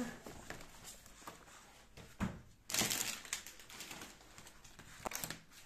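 Paper rustling and crinkling as a large sticker poster and sticker sheets are handled, with the loudest rustle about three seconds in and a few light clicks near the end.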